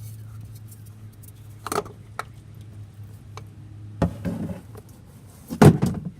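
Hand-work clinks and knocks of metal tools or parts being handled, scattered at first, with a louder knock about four seconds in and the loudest cluster near the end, over a steady low hum.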